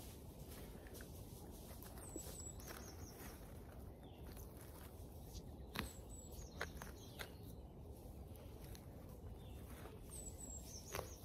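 Faint rustling and a few light clicks as a clump of snowdrop bulbs is pulled apart by hand and a trowel works the soil. A thin, high bird call comes three times, about four seconds apart, over a low steady outdoor hum.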